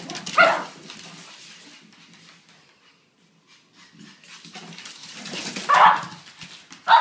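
Brussels Griffons barking and yipping as they wrestle in play. There is a loud bark about half a second in, a lull in the middle, a louder flurry near the end, and then a sharp yip.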